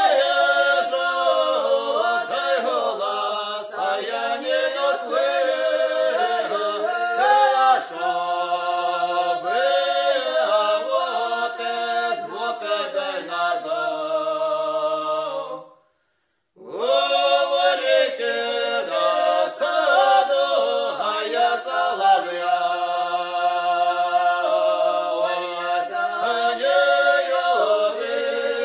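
A choir singing a cappella in long, held phrases. The singing stops for about a second midway, then starts again.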